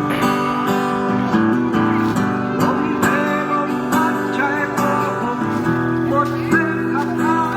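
Music led by a strummed acoustic guitar, with chords changing every second or so.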